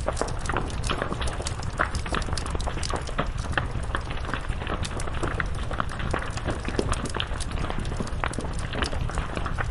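Wood fire burning: a steady low roar under dense, continual crackling and popping of burning wood.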